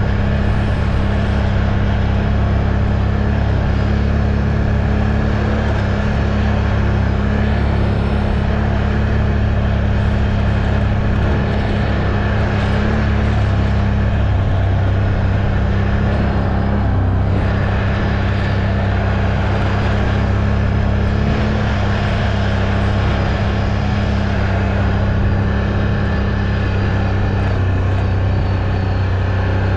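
Off-road ATV engine running at a steady speed, a constant low drone with little change in pitch.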